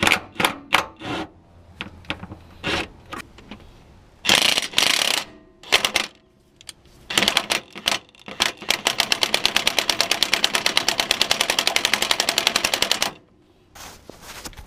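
Cordless brushless impact wrench hammering on bolts, loosening them to drop the transmission lower. It goes in several short bursts, then a steady run of rapid impacts for about four seconds that cuts off shortly before the end.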